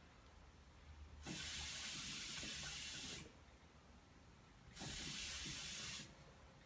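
Two hissing rushes of air as a clear acrylic hookah fitted with a silencer is drawn on through its hose, the first about two seconds long, the second shorter. The silencer keeps the water from bubbling audibly, so only the soft hiss is heard.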